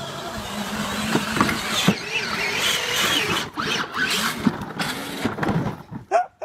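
Battery-powered ride-on toy Jeep running with a steady electric-motor hum, among voices and shrieks, then knocks and a clatter about three and a half to four seconds in as the toy tips over onto its side.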